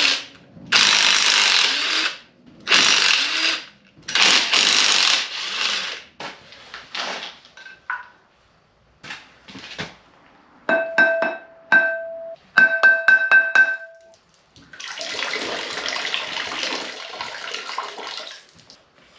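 Impact wrench firing in four or five bursts of about a second each, spinning off the 15 mm flywheel bolts of an LS1 V8. Then a run of sharp metallic clinks that ring, and near the end a few seconds of steady rushing noise.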